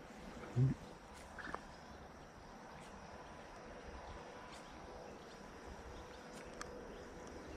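Quiet ambience on calm water: a faint steady hiss with a few light clicks, and one short low thump about half a second in.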